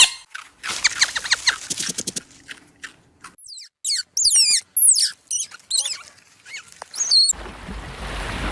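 A run of high-pitched animal squeaks and chirps, many sliding up and down in pitch, coming in quick short calls. About seven seconds in they stop and a low, steady rumbling noise takes over.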